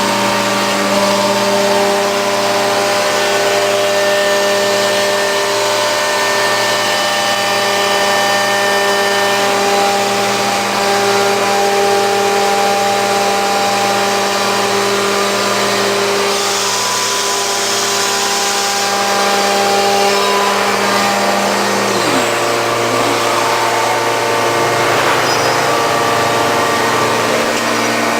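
Holytek NR-1010-2 fixed-portal CNC working center running: a steady machine drone made of several held tones. A brief hiss comes about seventeen seconds in, and a little after twenty seconds a tone slides down and the pitch of the drone shifts.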